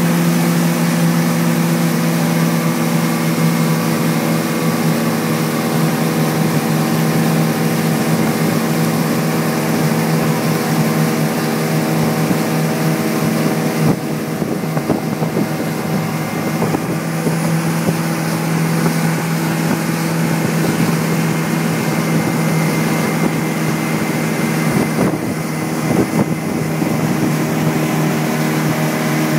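Towing motorboat's engine running steadily at speed, its hum holding one pitch, over a rush of wind and churning wake water.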